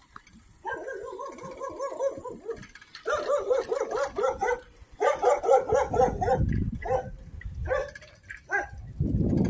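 A dog barking in three quick runs of yaps, each a second or two long, then a few single barks near the end. A low rumble runs under the later barks.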